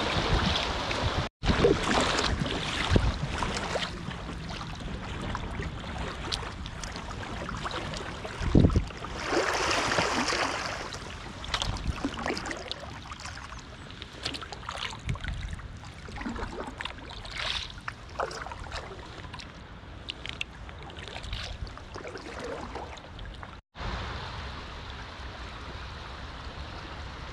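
Fast, high-water river rushing around a packraft, with irregular paddle splashes and wind buffeting the microphone. The sound cuts out for an instant twice.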